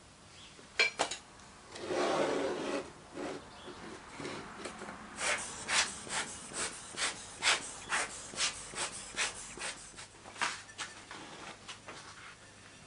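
Wooden sand-casting moulding flask being handled: a rubbing scrape about two seconds in, then a run of sharp taps, about two or three a second, as the flask and the sand mould are rapped with a small hand tool, typical of loosening the packed sand from the pattern.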